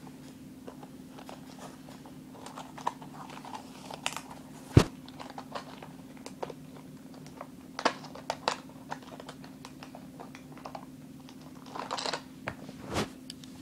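Packaging of a diecast toy car being handled and opened: crinkling and rustling with scattered clicks, and a sharp knock about five seconds in.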